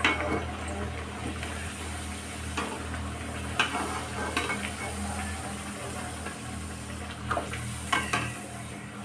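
Kachoris deep-frying in hot oil in a kadhai, a steady sizzle, with several sharp clicks and scrapes of a metal slotted spoon against the pan as a fried kachori is lifted out.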